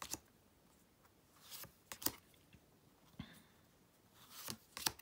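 Tarot cards being slid and moved one after another as a deck is paged through: several short papery swishes and flicks, a couple of them close together about two seconds in and again near the end.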